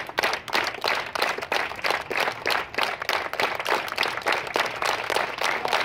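A crowd clapping together in a steady rhythm, the beat gradually quickening to about three or four claps a second.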